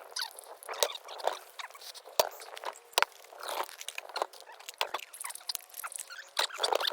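Wood fire crackling, with irregular sharp snaps and pops throughout.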